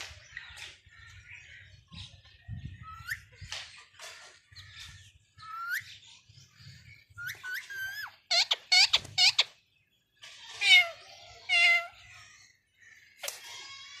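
Bird calls: a series of short squeaks that rise in pitch, then a run of loud, harsh squawks a little past the middle, and a few wavering calls after them.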